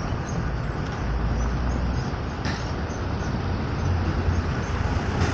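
Road traffic noise with the low engine rumble of a large bus going by, swelling twice. A brief tap sounds about two and a half seconds in.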